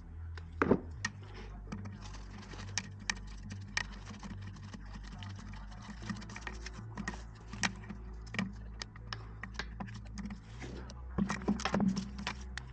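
Hand ratchet on a socket extension clicking as it undoes the back bolts of a VTG turbo actuator, irregular runs of short clicks with a sharper knock about a second in and a quick flurry of clicks near the end.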